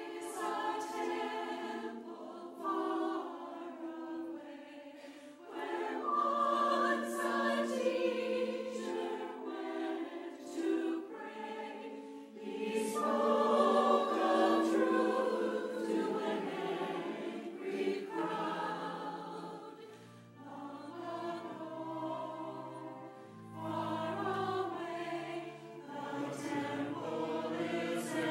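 Church choir singing an anthem, the phrases swelling and fading; low held notes join in about twenty seconds in.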